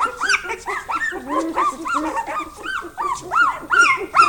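Norwegian Lundehund puppies squealing and yipping: a steady run of short high-pitched cries, each rising and falling, several a second.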